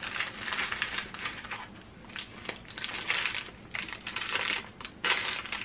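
Crinkle-cut shredded paper packing filler rustling and crackling in irregular bursts as hands rummage through it in a box.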